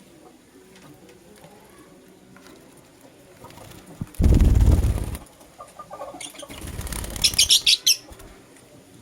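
Bird wings flapping in a loud flutter about four seconds in, then a quick run of about half a dozen shrill lovebird chirps near the end.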